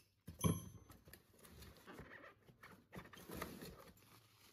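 Metal heat press parts being handled and lifted out of polystyrene foam packaging: scraping and rubbing against the foam, with a sharp knock and a brief ring about half a second in and another knock around three seconds.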